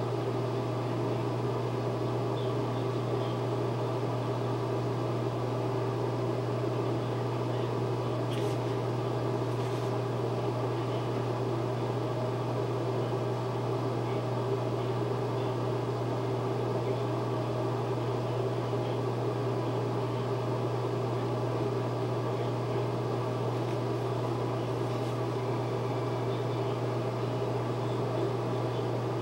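Steady low mechanical hum, like a small fan motor running, with an even background hiss and no change in level.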